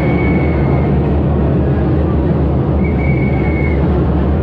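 Crowd noise at a street march over a steady low rumble, with two high, steady tones each just under a second long, one at the start and one about three seconds in.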